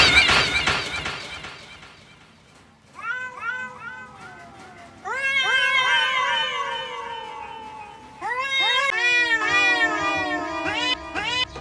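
Domestic cats fighting. It opens with a loud, harsh screech that fades over a couple of seconds, then long, wavering yowls rise and fall in pitch. The yowls start again about three, five and eight seconds in and overlap toward the end.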